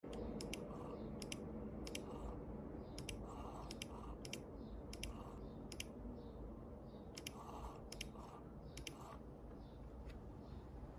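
Small drive mechanism of a custom speedbrake indicator clicking irregularly as it switches faces. The clicks often come in quick pairs, with short buzzes between them, over a steady low hum.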